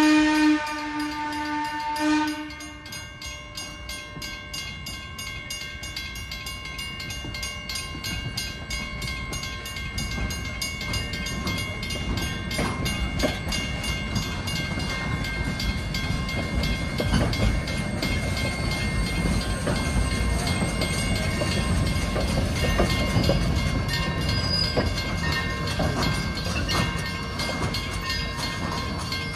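A steam locomotive whistle sounds until about two seconds in. After it, the grade-crossing signal bell rings steadily as the narrow-gauge train's coaches roll through the crossing, rumbling and clacking over the rails and growing louder from about ten seconds in.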